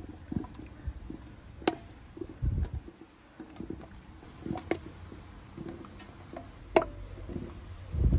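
Glass quart canning jars clinking and knocking against each other and the aluminium pressure canner as they are set in with a jar lifter, with a few dull thuds and a little water sloshing in the bottom of the canner.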